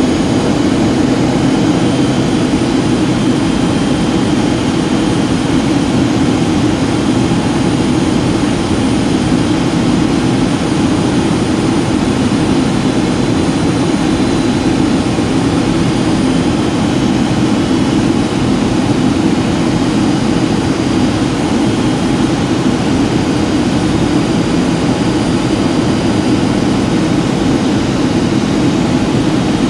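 Steady jet-engine and airflow drone inside the cabin of a Boeing 757-200 in flight, a constant low rumble with a faint high whine above it.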